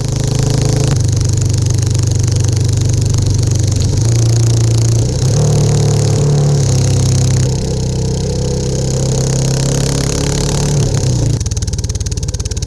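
Royal Enfield Classic 350's single-cylinder engine running under way through a Hitchcock's free-flowing exhaust. Its note steps up and down in pitch several times as the revs change.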